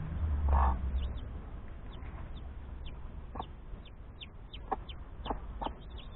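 A broody hen clucking, loudest once about half a second in and in a few short clucks later, while newly hatched chicks peep in short high chirps around her.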